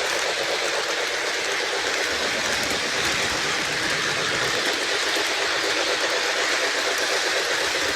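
Lionel LionChief Plus O gauge 4-6-4 Hudson model train running on its track: a steady rolling hiss and clatter of wheels on the rails, with no whistle.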